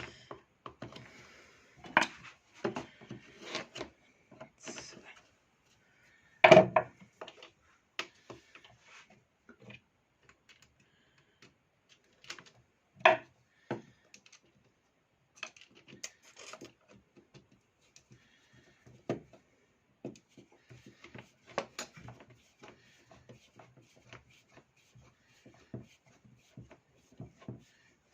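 Irregular clicks, knocks and rubbing of an electric chainsaw's parts and tools being handled during disassembly, with louder knocks about 2, 6.5 and 13 seconds in.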